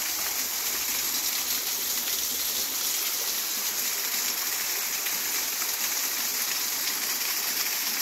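Small waterfall: thin streams of water falling down a rock face and splashing, a steady, even hiss of running water.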